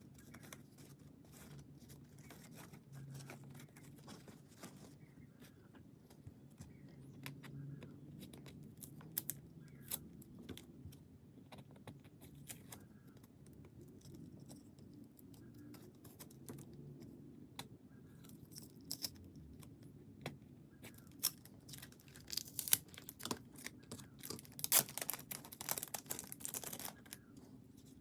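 Parcel packaging being unwrapped: crinkling and tearing of plastic and paper with small clicks and rustles. It grows busier and louder near the end.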